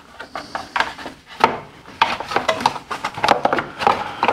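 Plastic air-filter housing and engine cowling of a Honda HF2417 ride-on mower being fitted into place: irregular knocks and clicks of plastic against the engine parts, busier from about two seconds in.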